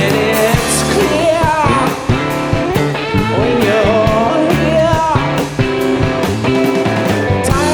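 Live rock band playing a song with guitar and a singer, over a steady beat.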